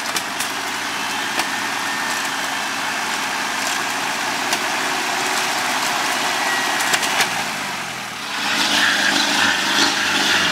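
Off-road 4x4 vehicle engine running steadily, with scattered clicks and knocks. It grows louder and noisier for the last couple of seconds.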